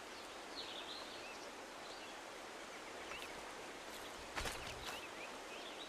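Faint outdoor ambience: a steady hiss with a few short bird chirps, and a couple of soft knocks about four and a half seconds in.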